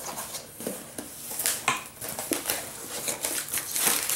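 Packaging being handled and unwrapped: irregular rustling and crinkling with light clicks and knocks.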